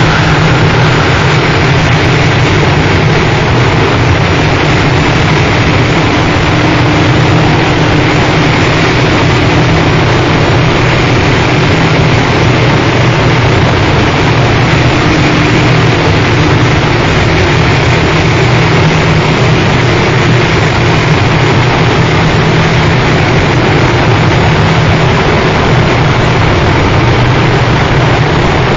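Harsh noise music: a loud, unchanging wall of dense distorted noise with a steady low hum underneath, no beat or melody.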